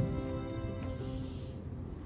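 Background music with sustained, held instrumental notes that change every so often.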